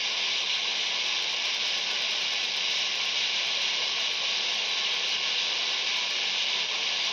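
Steady radio static hiss from a Quansheng UV-K5 handheld receiver tuned to 21.074 MHz on AM, with no station coming through, only band noise.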